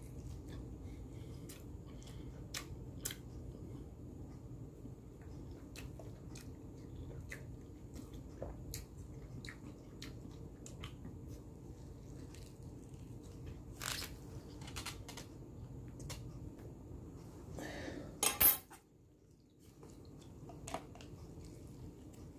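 Close-up eating sounds: chewing a soft wrap with small mouth clicks over a faint steady room hum. A loud metal clatter of cutlery against a plate comes near the end.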